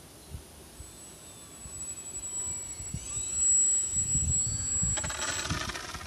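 Small RC electric airplane's motor and propeller whining, its pitch sliding as the throttle changes, then a steady high buzz from the motor at high revs near the end. Irregular low rumbles run underneath.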